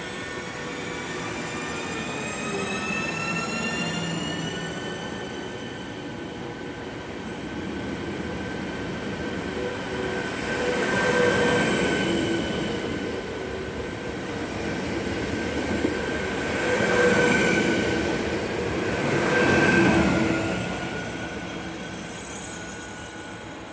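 ČD InterPanter electric multiple unit accelerating along the platform: its traction motors whine, several tones rising in pitch over the first few seconds. The cars then roll past with wheel noise and squeal, swelling loudest three times in the second half.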